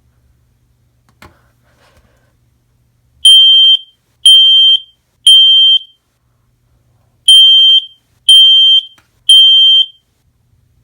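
Kidde smoke alarm sounding on test: two rounds of three loud, high-pitched beeps, each about half a second long, with a pause between rounds. This is the temporal-three evacuation pattern.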